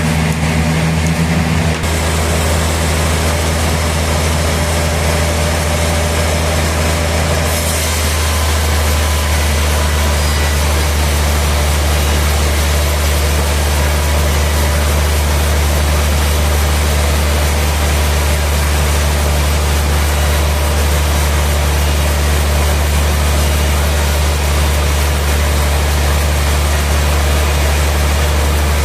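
Sawmill machinery running steadily with a deep, continuous engine hum and a noisy wash over it; the sound shifts about two seconds in and again about eight seconds in, after which it is hissier.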